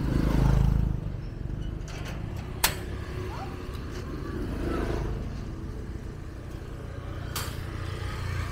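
Small motorbikes passing on a street, the loudest going by close in the first second with a low engine rumble, then quieter bike engines and traffic rumble. A sharp click comes about two and a half seconds in.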